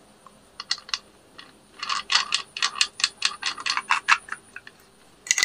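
Angle grinder's metal flange lock nut being spun by hand onto the spindle to hold a cutting disc: a run of light clicks, a few at first, then several a second.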